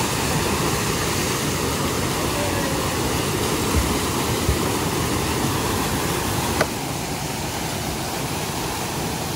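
A steep forest stream's whitewater cascade pours over boulders in a steady, loud rush. Two low thumps come near the middle, and a sharp click about two-thirds in, after which the rush is slightly quieter.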